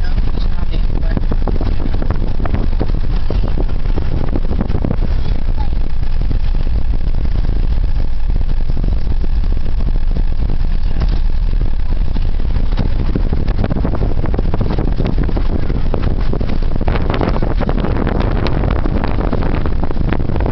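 A car driving on a rough, rocky dirt road, heard from inside the cabin: a steady low rumble of engine and tyres, with frequent small knocks and rattles.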